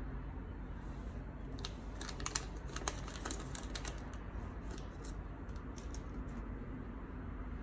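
A small clear plastic bag crackling and clicking in the hands as a SATA drive connector is taken out of it: a run of sharp crackles and clicks, densest in the first half, over a steady low hum.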